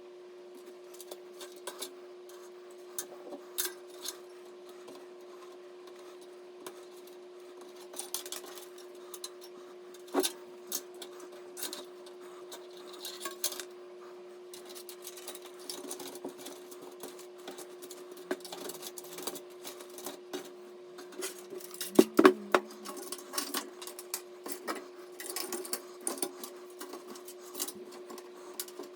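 Scattered clicks, taps and small plastic and metal rattles of computer parts being handled and fitted during a PC build, with a louder cluster of knocks about two-thirds of the way through, over a steady hum.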